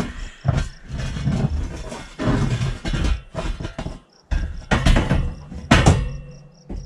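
Metal futon bed frame being set down and shifted on steel angle-iron rails: a run of irregular clanks and knocks, the loudest about five and six seconds in. Crickets chirp steadily in the second half.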